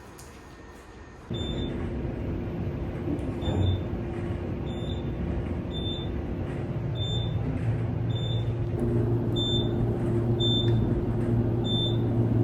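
Vehicle running with a steady low engine hum and road noise, starting abruptly about a second in and growing stronger in the second half, with a faint high short tone repeating about every 0.7 seconds.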